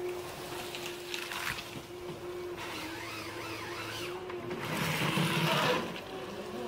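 Ponsse Ergo forest harvester working: a steady engine and hydraulic hum with a wavering whine, and a louder rasping burst about five seconds in as the H7 harvester head grips and works the felled spruce trunk.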